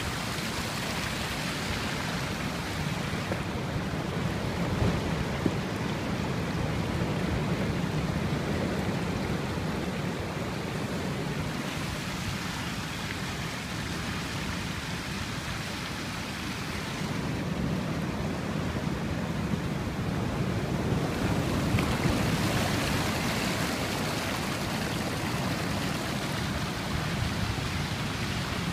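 Ocean surf and seawater washing over a boulder seawall and flowing across a flooded street during a high tide: a steady rush that swells and eases over several seconds at a time.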